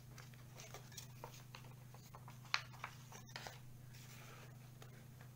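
A sheet of drawing paper being cut and handled: scattered light clicks and snips, one louder click about two and a half seconds in, and a brief paper rustle near four seconds, over a low steady hum.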